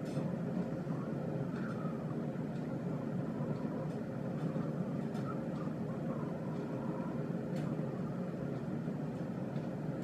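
Steady low rumble of background noise, with a few faint short chirps now and then.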